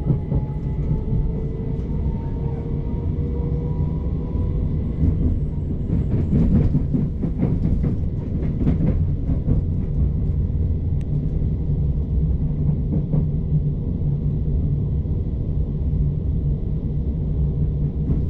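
Passenger train running, heard from inside the carriage: a steady low rumble with a faint rising whine in the first few seconds and some rattling and clattering between about six and nine seconds in.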